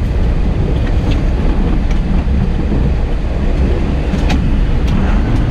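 Steady low rumble of a vehicle travelling over a rough, slippery dirt track, with wind buffeting the microphone and a few light knocks.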